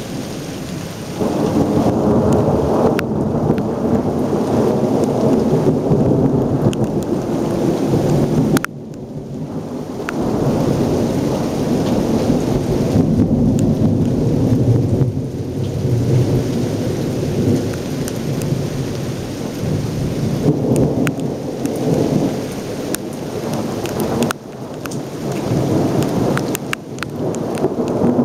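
Thunder rolling and rumbling almost without a break over heavy rain. The rumble drops away sharply for a moment about a third of the way in, then builds again. Scattered sharp crackles come from raindrops striking the camera.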